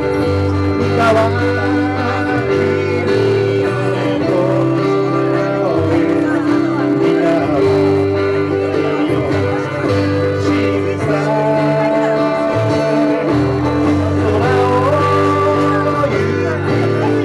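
Live acoustic band: several acoustic guitars strummed together while a man sings lead into a microphone.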